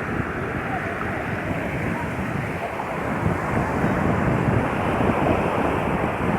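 Sea surf washing onto a beach in a continuous rushing wash that swells a little in the middle, with wind buffeting the microphone.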